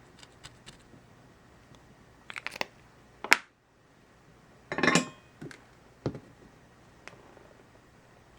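Scattered small clicks and taps of tools being handled at an electronics workbench, with a sharp click about three seconds in and a short scraping rustle about five seconds in.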